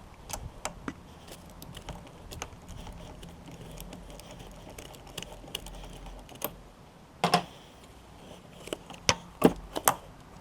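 Hand tools working on the car: a socket wrench ratcheting with scattered irregular clicks, and a few louder metal clacks near the end.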